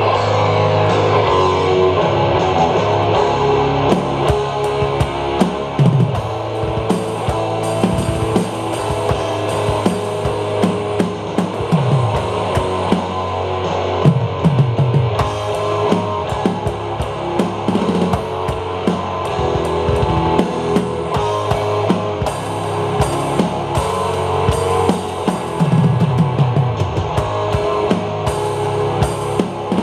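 A Tama drum kit played live along with a recorded rock song: kick, snare and cymbal hits over heavy, distorted guitar and bass.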